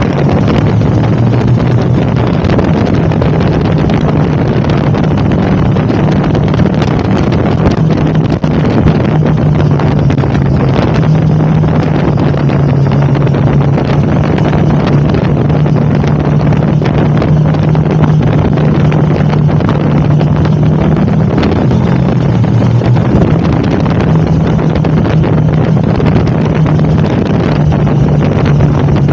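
KTM 1290 Super Adventure's V-twin engine running at a steady road cruise, its pitch shifting a little now and then, under heavy wind noise on the microphone.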